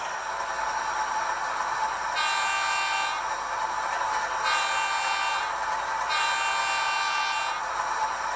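Sound decoder of an HO scale NSWGR 44 class model locomotive, played through its small onboard speaker: a steady diesel engine sound, with three horn blasts, the third the longest.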